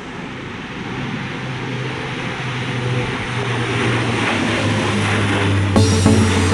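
Jet airliner's engines at go-around thrust, a rushing noise with a low hum that grows steadily louder as the aircraft climbs past.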